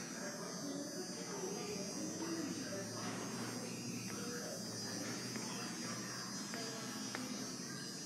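Steady electrical hum with a high buzz over it: room tone, with no distinct event.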